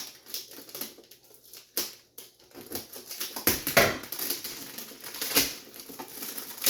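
Crinkling, rustling and clicking as the packaging and plastic parts of a forearm and hand massager are handled and unpacked, with the loudest crackles a little past halfway through.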